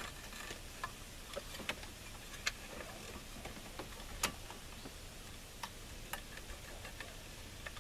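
Irregular light clicks and taps of hand tools and dash parts being handled, about a dozen spread unevenly, the sharpest about four seconds in.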